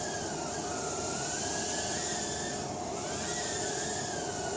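Eachine E010 micro quadcopter's tiny brushed motors and propellers whining in flight, the pitch rising and falling several times as the throttle is worked to keep it level.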